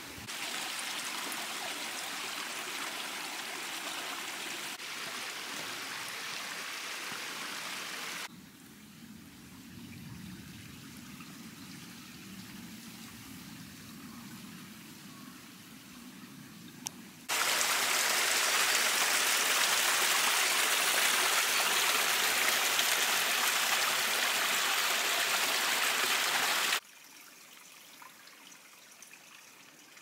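Small mountain stream running over rocks: a steady rush of water. It drops abruptly to a softer flow about eight seconds in, comes back loud around seventeen seconds, and drops again near the end.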